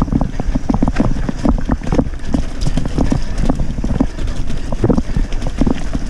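Mountain bike rattling and clattering over a rough trail, a dense, uneven run of knocks from the frame and parts, with wind buffeting the microphone.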